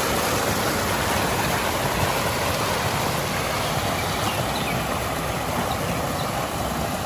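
Water gushing from a pump's outlet pipe and splashing into a concrete tank: a steady rush of water.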